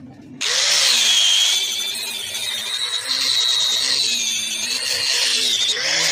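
Corded electric angle grinder with a sanding disc, starting abruptly about half a second in and running with a high, wavering whine as it sands the face of a coconut-wood cricket bat, then winding down at the very end.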